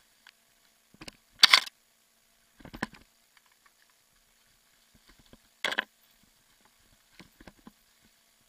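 A mountain bike rattling and clattering over bumps on a dirt trail, picked up by a bike-mounted camera. There are short sharp bursts, the loudest about a second and a half in, another a second later and one more near six seconds, with a few light ticks after it and near-quiet gaps between.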